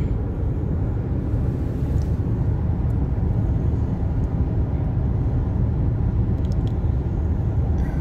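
Steady road rumble inside the cabin of a Nissan car cruising at highway speed: tyre and engine noise heard from inside, with no change in pace.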